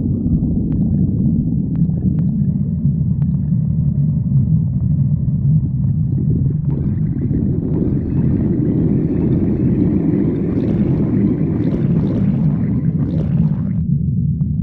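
Stomach growling: a continuous low rumble, joined about halfway through by a brighter, higher-pitched stretch that cuts off suddenly near the end.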